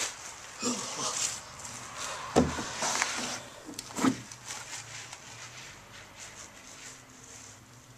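Scuffing and knocks close to the microphone, the loudest a sharp thump about two and a half seconds in, with another about four seconds in.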